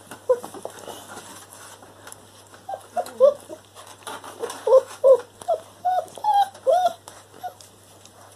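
A dog whimpering: a quick run of short, high whines that slide up and down, beginning about three seconds in.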